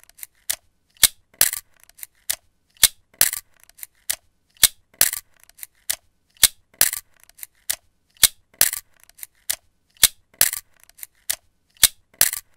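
A Chaika-2 half-frame film camera's shutter mechanism clicking over and over. The clicks are sharp and come two or three a second, often in pairs.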